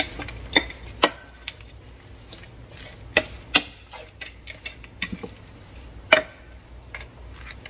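A wooden spoon stirring frozen stir-fry vegetables in a square copper-coloured nonstick pan: irregular knocks and clicks of the spoon against the pan, with little or no sizzle.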